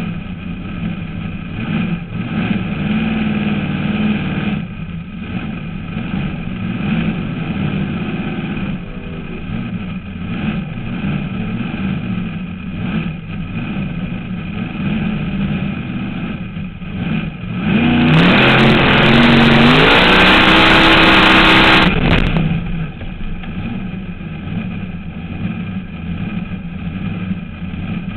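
Supercharged alcohol-burning engine of a fuel altered drag car idling, heard from inside its open cockpit. About eighteen seconds in it is revved hard for some four seconds, the pitch climbing, then drops back to idle.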